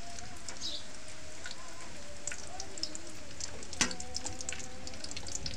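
Whole cumin seeds and bay leaves sizzling and crackling in hot oil in a steel kadai, many small pops over a steady hiss, with one sharp click about four seconds in.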